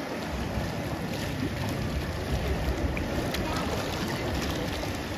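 Wind buffeting the microphone over open water: a steady low rumble and hiss, with sea water lapping.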